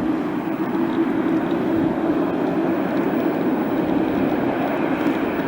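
Jet aircraft engines running steadily: an even rushing roar with a low hum under it.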